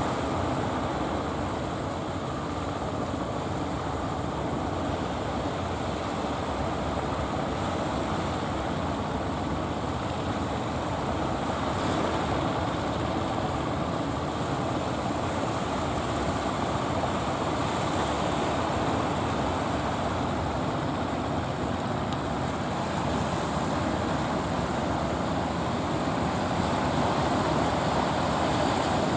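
Fishing boat engines running steadily, mixed with the wash of surf.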